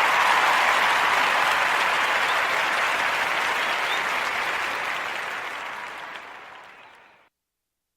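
Applause, even and steady, fading out gradually and cutting to silence about seven seconds in.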